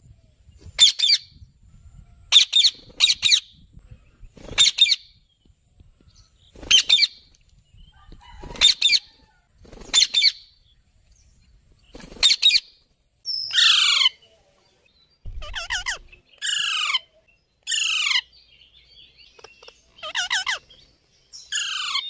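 Indian ringneck parakeets calling with short, shrill screeches every second or two. About halfway through, the calls change to longer screeches that fall in pitch, several in quick succession.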